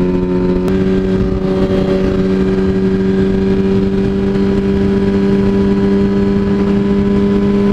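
2007 Yamaha R1's inline-four engine running at steady revs while riding, with a slight rise in pitch just under a second in, over wind noise.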